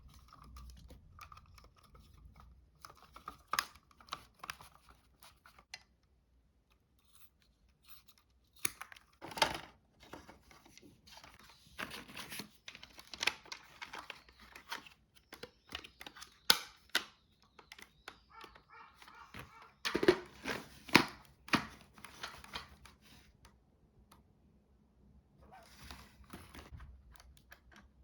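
Irregular plastic clicks, scrapes and rustles from hands working on Dyson V6 cordless vacuum parts, in clusters with short pauses.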